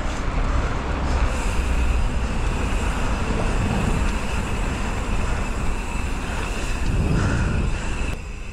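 Wind rumbling on an action camera's microphone while a bicycle is ridden along a town street, with road traffic running in the background.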